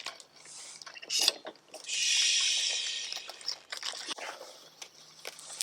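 Crab set on a grill net over wood-fire embers: a few light clicks and knocks, then a hissing sizzle for about two seconds that slowly fades.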